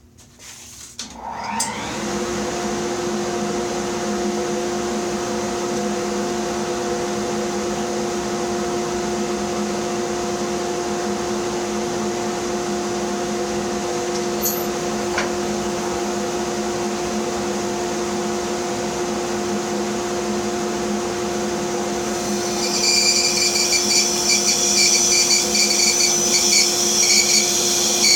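Bandsaw motor starting up with a rising whine about a second in, then running steadily; near the end the blade bites into the wooden block and the sound gets louder and higher as it cuts.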